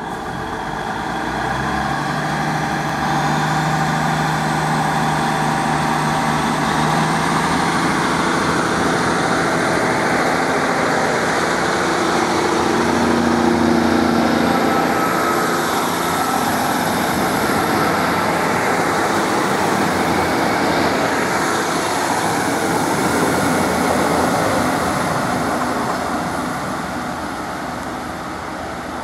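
Two coupled Class 150 Sprinter diesel multiple units pulling away under power: their underfloor Cummins diesel engines rev up, the pitch rising over the first few seconds, then run hard along with the wheels on the rails. The sound fades near the end as the train draws away.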